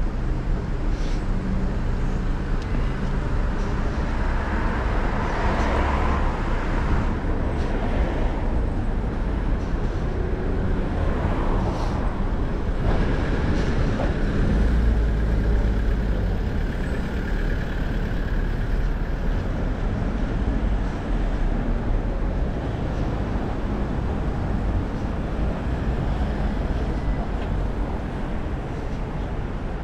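Road traffic passing: steady engine and tyre noise from cars, with a heavier vehicle's deeper rumble swelling about halfway through.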